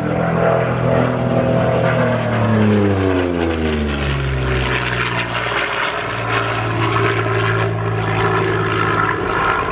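Propeller aircraft engine in a low pass: the engine note falls in pitch as the plane goes by over the first half, then holds steady.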